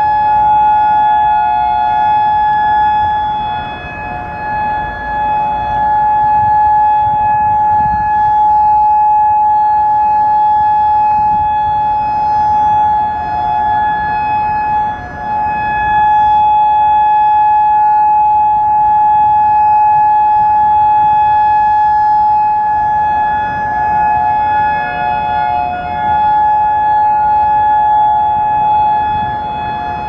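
Federal Signal Modulator 4016 electronic warning siren sounding its full Alert signal: one steady, held tone from its stacked omnidirectional speaker array, with the level briefly dipping a couple of times. This is the steady alert tone of a scheduled outdoor warning-siren test.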